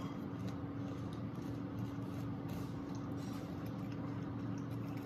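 Steady low hum with faint, scattered soft ticks over it.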